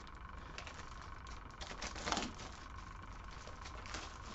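Faint crinkling of plastic packaging and small clicks as a pair of new BMX pedals is unwrapped, with a louder rustle about two seconds in.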